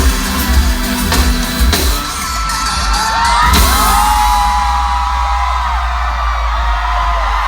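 Live pop music over a concert sound system finishes with a final hit about three and a half seconds in. A crowd of fans then screams and cheers, many high shrieks overlapping.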